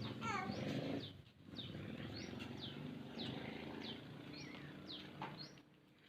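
Small birds chirping: short, high, falling chirps about twice a second, over a low steady background rumble.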